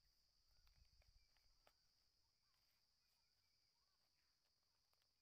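Near silence: faint outdoor ambience, with a steady high insect drone and a few faint bird chirps.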